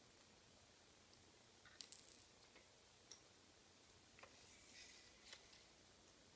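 Faint, scattered clicks of plastic Lego bricks being handled and pressed together, against near silence: a small cluster about two seconds in and a few more near the middle and later.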